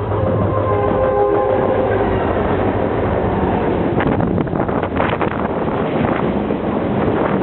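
EMD SD40-2 diesel freight locomotives passing with the horn sounding a multi-tone chord for about two and a half seconds over the engines' rumble. Then a run of sharp clicks as wheels pass over rail joints.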